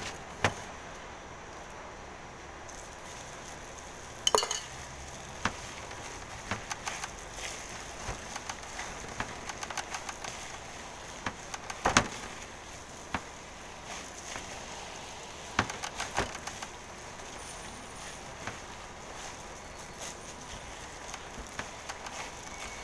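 Meatloaf mixture being kneaded by hand in a stainless steel bowl: scattered clinks and knocks of the metal bowl on the table, the loudest about four, twelve and sixteen seconds in, over a steady hiss.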